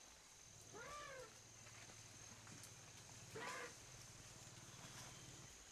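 Bornean pygmy elephant calf giving two short, high squeaky cries that rise and fall in pitch, the second about two and a half seconds after the first and louder.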